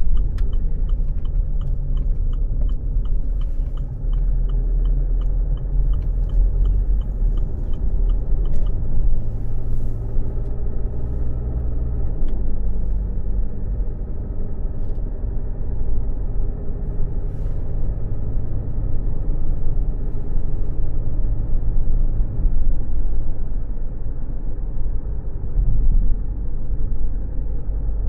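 Steady low car engine and road rumble heard from inside the car. A turn-signal indicator ticks about twice a second and stops about eight seconds in.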